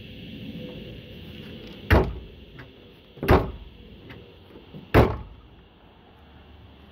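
Steel trunk lid of a 1969 Mustang being shut: three loud thuds, about one and a half seconds apart.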